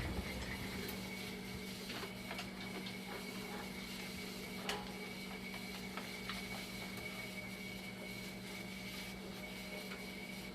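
Dialysis machine running under test with a steady low hum and a faint high whine, and a few light clicks about two, five and six seconds in. The loud noise of its failing power supply is gone since the swap to a spare unit.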